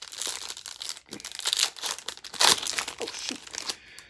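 Foil trading-card pack being torn open and its wrapper crinkled in the hands: a run of rustling, crinkling bursts, loudest around the middle, dying down near the end.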